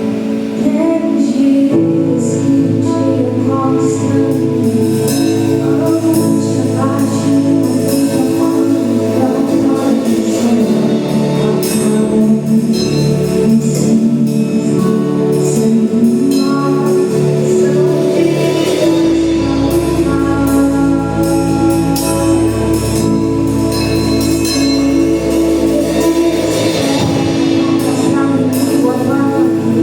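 Gospel worship song: singing over instrumental accompaniment, playing steadily.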